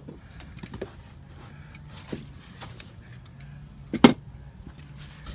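Scattered light metallic clinks and knocks of metal parts being handled, with one sharp, much louder clank about four seconds in.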